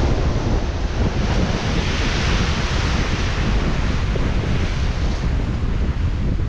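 Sea surf washing under heavy wind buffeting the microphone, with the hiss of a wave swelling about a second and a half in and falling away about five seconds in.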